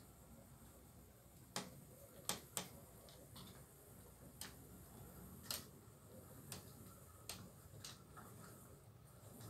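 HO scale model train cars rolling past, their wheels clicking over the track joints: about eight sharp clicks at uneven intervals over faint hiss.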